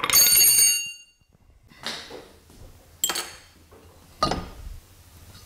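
Metal clanging against metal with a bright ring that fades over about a second. A few lighter metallic clinks and one duller knock follow as metal parts are handled.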